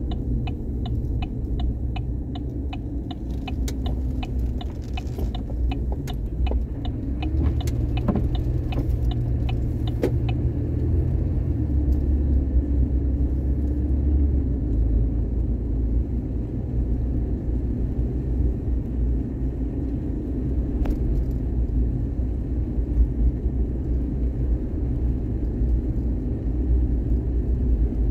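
Steady low rumble of a car in motion. Over it comes an even ticking, about four ticks a second, which stops about ten seconds in.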